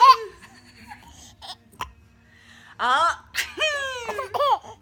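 Twin babies laughing in high-pitched bursts. A laugh trails off at the start, there is a lull of about two and a half seconds with one soft click, then a fresh run of laughter with falling pitch from about three seconds in.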